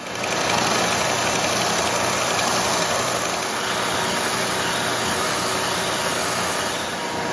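Benchtop oscillating belt sander running steadily while a wooden bow limb-tip overlay is held against the sanding belt to shape it.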